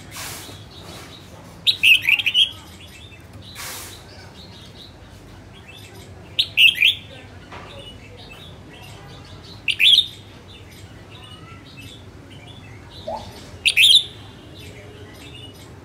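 Red-whiskered bulbul singing: four short phrases of quick, downward-sweeping notes a few seconds apart. Two brief rustling noises come in the first few seconds.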